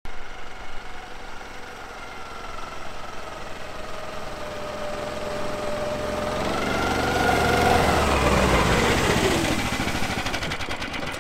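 Tinger Dog Pro motorized towing dog's 13.5 hp Briggs & Stratton four-stroke engine running as the tracked machine drives toward and past. It grows louder to a peak about seven to eight seconds in, then its pitch drops as it passes and pulls away.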